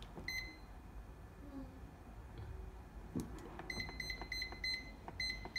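Panasonic SR-SPX104 rice cooker's control panel beeping as its time keys are pressed to set the cook-finish timer. One short beep comes just after the start. After a pause of about three seconds there is a run of quick beeps, about three a second.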